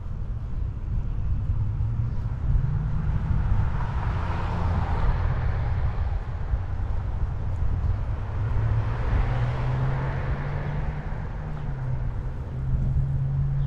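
Steady wind rumble on a moving cyclist's microphone, with road traffic passing: two vehicles swell and fade, one about four seconds in and another about nine seconds in.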